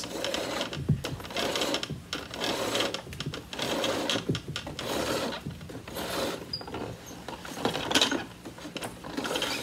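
Power cord of a Riccar Pizzazz canister vacuum being drawn out of its cord-rewind reel in a series of pulls, each pull a rubbing, rasping slide of the cord through the housing.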